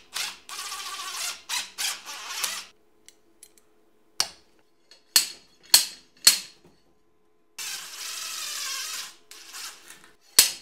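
A cordless drill drives a screw into a stuck axle pinion seal in short bursts. Then a slide hammer hooked to the screw gives several sharp metal knocks, about half a second to a second apart, trying to pull the seal. The drill runs again for about a second and a half, and one more knock comes near the end.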